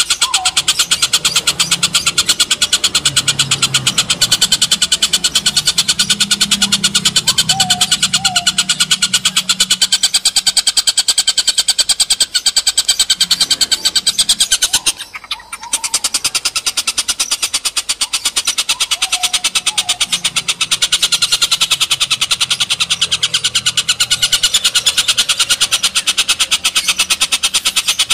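Oriental dollarbird giving a long, rapid cackling call, a fast even train of notes that breaks off briefly about halfway through.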